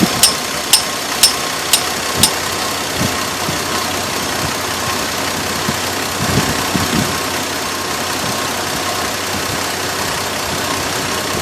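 2002 Chevrolet Trailblazer's 4.2-litre inline-six idling, with a sharp tick about twice a second that stops about two seconds in while the engine runs on. The owner has already replaced the fan clutch without curing the tick and suspects the water pump.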